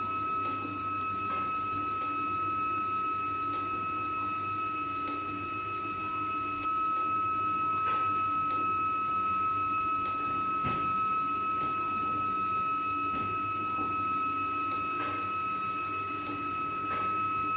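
Single-pass inkjet carton printer running: a steady high whine over a low hum, with a few faint clicks, a little louder from about seven seconds in.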